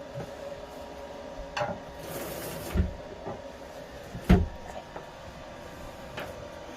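A few scattered knocks and bumps from handling parts and tools, with a short hiss about two seconds in and the loudest sharp knock a little after four seconds.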